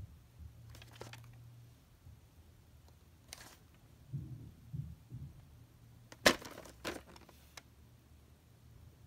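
Handling noise from a VHS tape box being turned over in the hand: a brief swish, a few soft bumps, and a sharp click or knock about six seconds in, the loudest sound.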